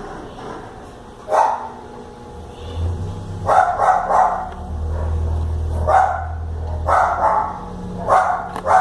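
A dog barking repeatedly, about seven short barks spread unevenly, several coming in quick pairs.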